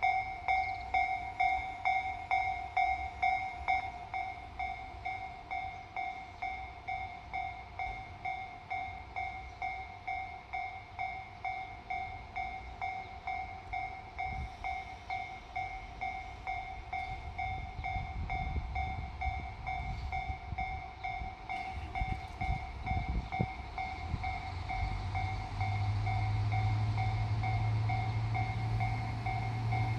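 Japanese railway level-crossing alarm ringing, about two strokes a second. From about halfway a low rumble builds with a few sharp clicks as a diesel railcar approaches, and its engine becomes a steady low drone near the end.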